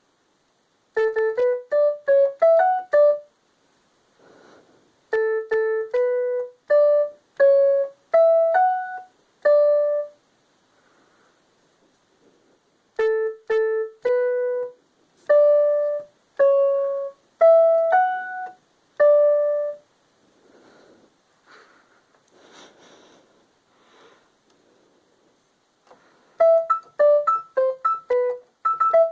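Technics SX-K700 electronic keyboard playing short ringtone-style melodies in a clear, bell-like tone: a quick run of notes, then a slower phrase played twice over, with a gap of faint rustling before another quick run of notes near the end.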